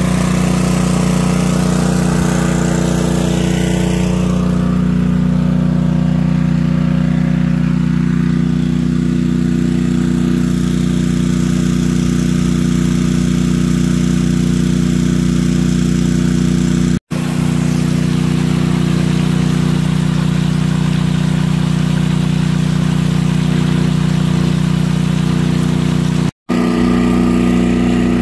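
Small gasoline engine of a portable water pump running steadily at a constant speed, under load as it draws water out of a manhole through a suction hose.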